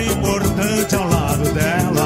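Instrumental passage of a Brazilian samba song: melody instruments over steady, evenly repeating percussion.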